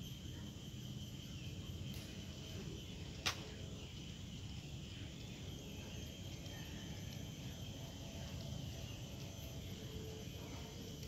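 Scissors cutting a plastic drinking straw into strips, with one sharp snip about three seconds in and a fainter one just before it, over low steady background noise.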